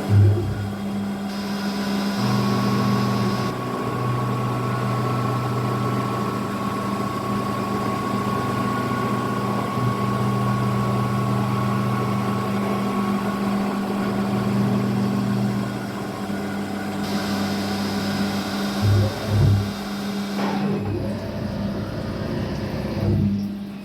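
Kunzmann WF7 CNC milling machine running while milling aluminium rings: a steady motor hum with a high, even whine over much of the time, changing in character a few times as the machine moves through its program. Two short thumps come about 19 seconds in, and the sound drops back near the end.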